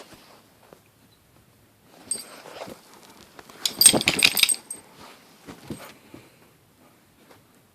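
Metal tags on a Labradoodle's collar jangling as the dog moves and shakes: a short, softer jingle about two seconds in, then a louder, busier rattle lasting about a second.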